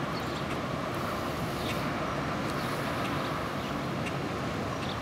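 Steady outdoor ambience: an even low rumble of distant traffic, with a few faint ticks.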